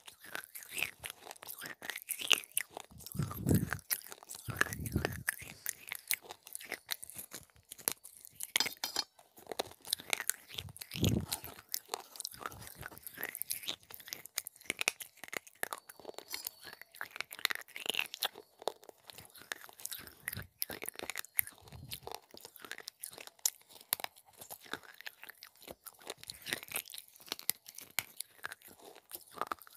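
Close-up crunching and chewing of broken fired-clay pot pieces: many sharp, brittle cracks as the shards are bitten and ground between the teeth, with a few dull low thumps.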